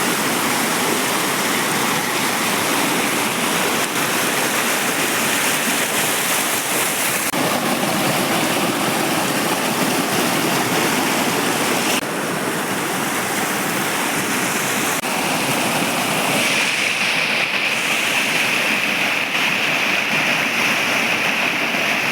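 Water of a flowing stream rushing steadily over rocks, a continuous hiss-like rush whose tone shifts abruptly a few times.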